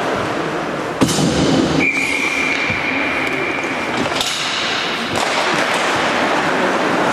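Ice hockey game sounds: skates and play on the ice make a steady scraping noise, with a sharp knock about a second in, like a puck or stick hitting the boards. A single steady whistle blows for about two seconds, and more knocks follow.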